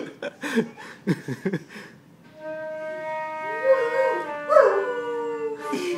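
A flute holds a long steady note from about two seconds in, while a German Shepherd howls along with it in two rising-and-falling howls.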